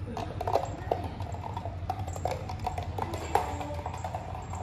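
Light background music with clicky, wood-block-like percussion and short plucked notes.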